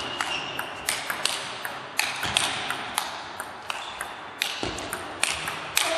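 Table tennis rally: the celluloid ball clicking sharply off the rackets and the table, about two hits a second, each hit echoing briefly in the hall.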